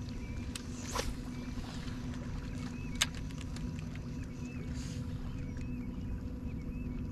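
Steady low rumble of wind and water around a fishing kayak, under a steady low hum. Two sharp clicks come about one and three seconds in, with faint short chirps scattered through.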